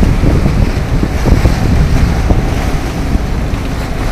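Wind buffeting the microphone over the rush and splash of churning wake water behind a sailing catamaran under way in choppy seas.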